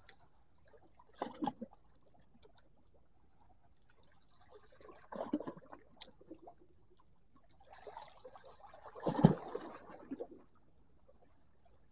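Small waves lapping and splashing against shallow shore rocks, in brief irregular splashes every few seconds, the loudest a little after halfway.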